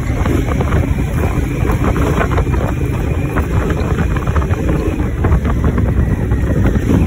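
Honda Africa Twin motorcycle riding along a dirt track: its parallel-twin engine running steadily under wind buffeting on the microphone, with frequent small knocks and rattles from the rough surface.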